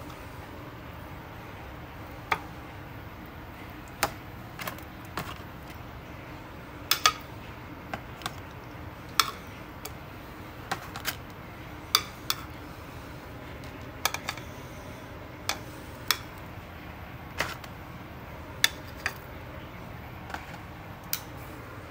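Metal kitchen tongs clicking and tapping against a plastic takeout tray as pieces of steak are picked up and moved: irregular sharp clicks every second or so, some in quick pairs.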